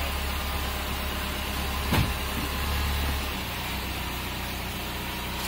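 Chrysler PT Cruiser GT's turbocharged 2.4-litre four-cylinder engine idling steadily. There is one sharp knock about two seconds in, and the idle quietens slightly just after three seconds.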